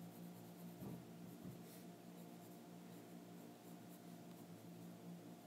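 Faint scratching of a Faber-Castell Polychromos colored pencil shading on coloring-book paper, over a steady low hum, with a couple of soft bumps about a second in.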